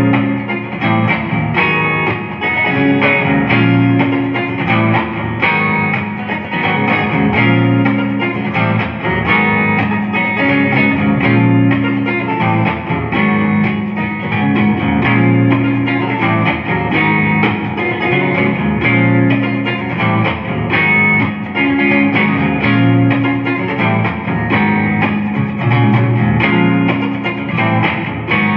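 Jonah Custom Deluxe '69 electric guitar played continuously with a clean tone through a Champion 40 amp with a little reverb.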